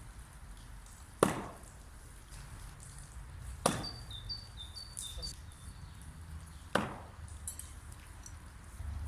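No-spin throwing knife striking and sticking in the target three times. Each is a sharp impact with a brief ring, about two and a half to three seconds apart.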